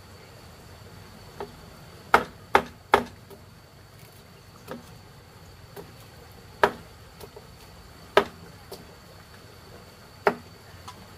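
Knife chopping on a wooden cutting board in sharp, irregular strokes, about seven loud chops with lighter taps between. A steady high insect drone runs behind.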